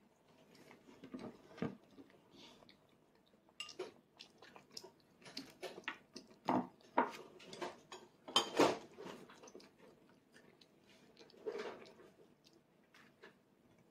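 A child's plastic training chopsticks clicking and scraping on a plastic plate: scattered light clicks throughout, busier in the middle. Soft chewing in between.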